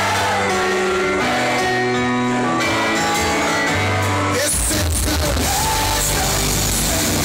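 Rock band playing live: held guitar and keyboard chords for about four and a half seconds, then the drums and full band come in.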